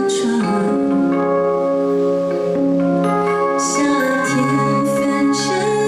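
Live pop ballad played in concert: a female singer's voice over sustained keyboard chords.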